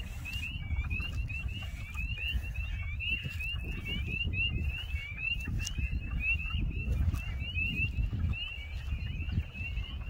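A dense chorus of spring peepers: many short, high, rising peeps overlapping continuously, with wind rumbling on the microphone underneath.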